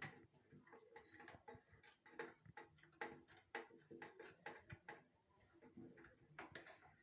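Faint, irregular clicks and taps, roughly two a second, of small metal parts and tools being handled while a gas stove is taken apart.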